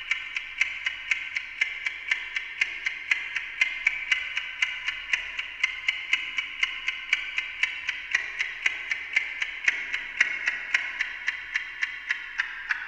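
Amplified ticking of a Westclox Silver Bell Monogram mechanical clock, fed through a voltage-controlled digital delay with a bank of fixed delays. The result is a fast, even stream of ticks with fainter delayed copies falling between them. Near the end the ticks turn lower and duller.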